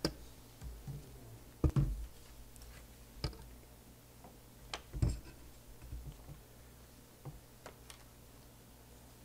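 A handful of scattered small clicks and knocks, the strongest two about a second and a half and five seconds in, over a faint steady low hum of room tone.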